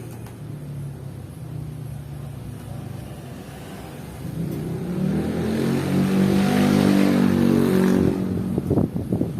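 A motor vehicle's engine grows louder over a few seconds, runs loudest for a moment and then drops away as it passes close by. A few sharp knocks follow near the end.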